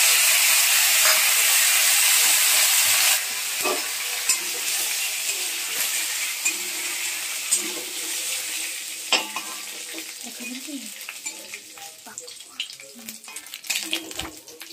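Hot oil in an aluminium kadai sizzling loudly as green vegetable pieces fry in a tempering of dried red chillies and five-spice. The sizzle drops suddenly about three seconds in and keeps fading, while a spatula scrapes and taps the pan as the pieces are stirred.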